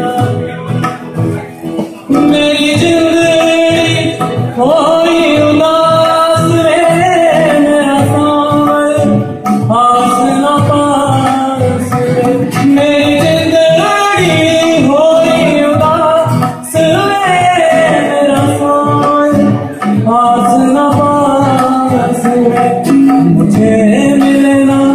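Male vocalist singing a folk song live over strummed acoustic guitar and electric bass. The voice comes in about two seconds in, with long held, wavering notes.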